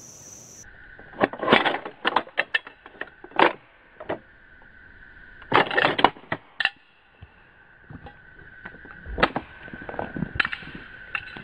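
The bolt of a 1903 Springfield bolt-action rifle being worked by hand: several quick clusters of sharp metallic clacks as it is opened, drawn back and closed, then lighter clicks of handling.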